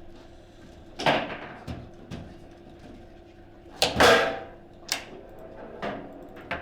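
Table football in play: sharp clacking knocks of the ball struck by the rod figures and hitting the table, a strong knock about a second in and the loudest pair about four seconds in, then a few lighter knocks.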